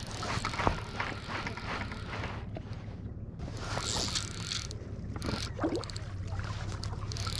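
Wind buffeting the microphone over choppy lake water, with bursts of rustling and a few sharp clicks from handling the fly rod and line while a hooked fish is being played.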